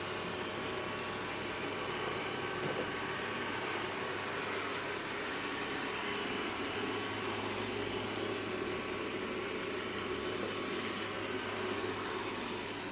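Roborock S5 Max robot vacuum cleaner running as it cleans the floor: a steady, even mechanical hum.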